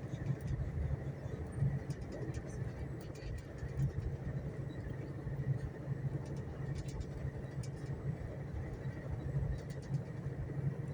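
VIA Rail passenger train in motion: a steady low rumble with faint, scattered light ticks.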